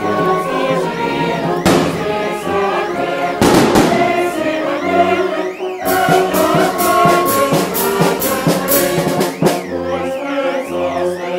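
Brass band music with voices singing, and a run of sharp cracks in the second half.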